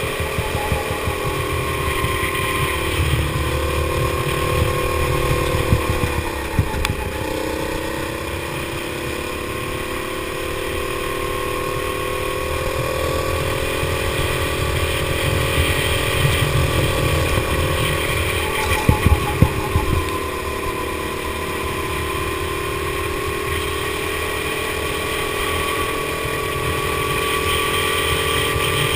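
Go-kart engine heard from on board, running hard. Its pitch drops off about six seconds in and again near twenty seconds, then climbs back up, with a few sharp knocks around those dips.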